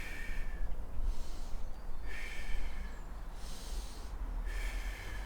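A man's slow, audible breaths through the nose, about three long breaths in and out, in time with a qigong movement. There is a steady low rumble under them.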